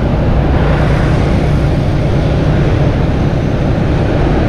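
Steady engine hum and road noise of a vehicle moving through city traffic, with an even rush of noise over it.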